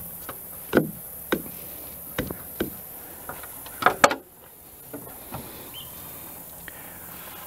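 Several sharp wooden knocks as a timber knee brace is worked and tapped into place between a post and a beam, the loudest pair close together about four seconds in.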